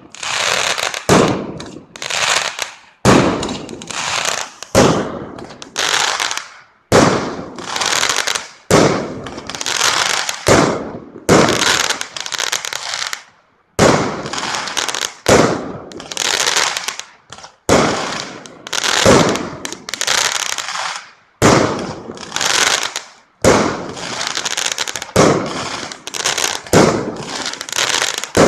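Fireworks going off in a rapid barrage, about one sharp bang a second, each burst fading out in a crackling tail before the next.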